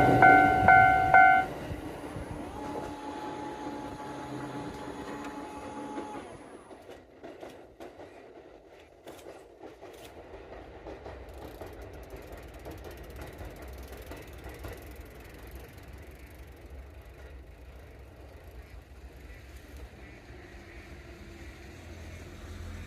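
A train horn ends about a second in, then the passing train fades to a low, steady rumble that runs on quietly.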